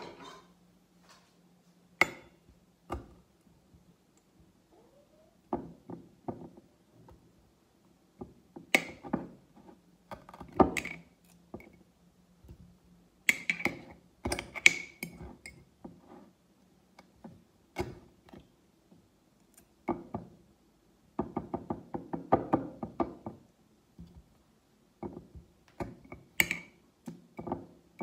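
Scattered knocks, taps and light clinks as pickled gherkins are taken out of a glass jar, partly with a fork, and set down on a plastic cutting board. A faint steady hum runs underneath.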